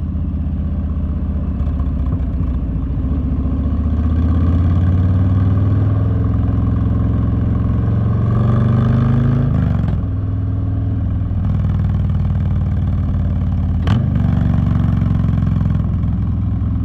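Harley-Davidson Street Bob's V-twin engine running under way, the exhaust note climbing in pitch about eight seconds in and dropping away near ten seconds, with a brief sharp click at about fourteen seconds.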